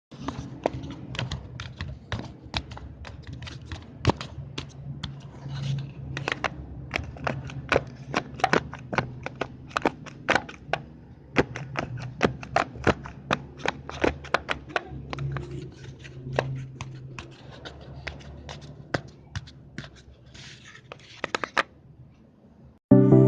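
Paper being handled: irregular sharp clicks and crinkles, a few a second, over a faint low hum.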